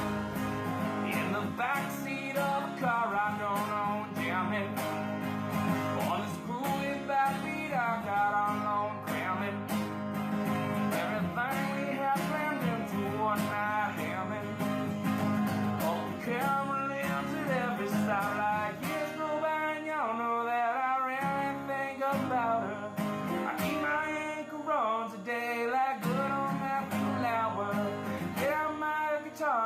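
Country-style background music led by acoustic guitar.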